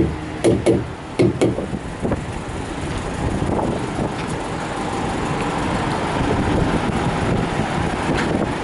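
A few short, hollow thumps in the first second and a half, then the steady rumble of vehicle engines and traffic at a truck stop fuel island.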